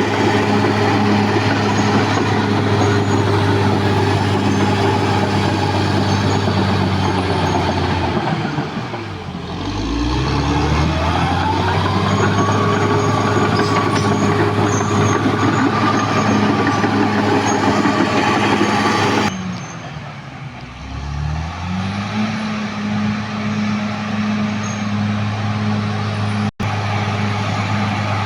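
Diesel engine of a CAT D6R XL crawler bulldozer running steadily at working speed. Its speed twice drops low and climbs back up, once about a third of the way in and again about two-thirds in.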